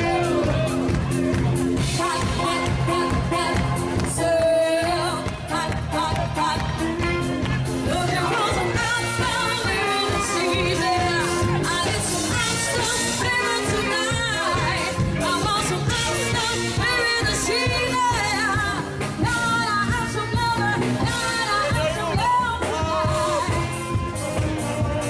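A band playing a pop song with a lead singer, steady and continuous.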